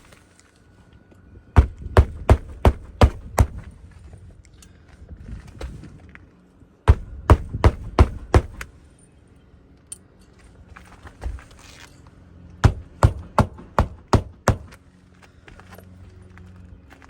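Hammer driving roofing nails to fasten a replacement asphalt shingle: three quick runs of sharp blows, six or seven strikes each, with short pauses between.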